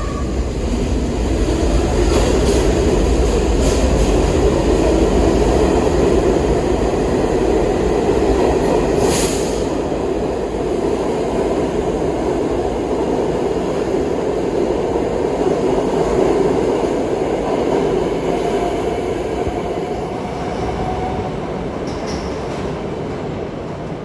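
R68A subway train pulling out of an underground station, its wheels and motors rumbling loudly as the cars pass close by, then fading as it runs off down the tunnel. A short high-pitched hiss comes about nine seconds in.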